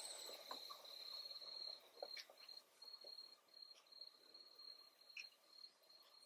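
Faint, steady high insect trill that breaks into short pulses about two seconds in, with a few soft clicks as the glossy black cockatoo's beak works a casuarina cone.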